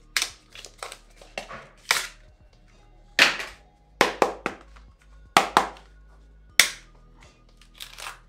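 A variable ND filter's packaging being opened and handled: a string of sharp clicks and snaps, about a dozen, the loudest four spread through the middle, over quiet background music.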